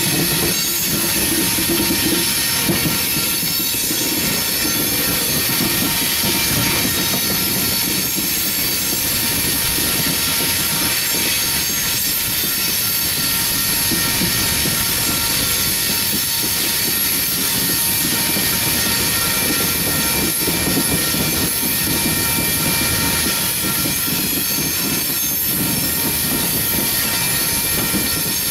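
Coal train's freight cars rolling by, their steel wheels squealing steadily on the rails in several high tones over the rumble of the wheels.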